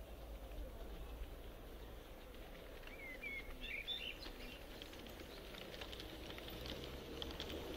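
An LGB G-scale model of an ÖBB 2095 diesel locomotive approaching with its train: the clicking of wheels over the track and the hum of its electric motor grow louder from about halfway through. A bird chirps briefly about three seconds in.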